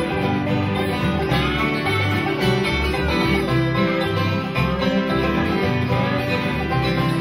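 Live acoustic country-bluegrass band playing an instrumental passage: two acoustic guitars strumming and a banjo picking, over a steady bass beat.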